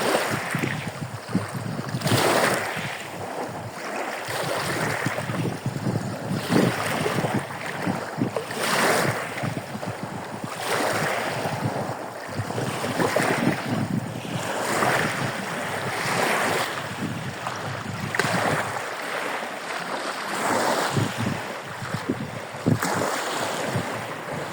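Surf on a bay: waves washing onto the shore one after another, with a new surge of noise roughly every two seconds.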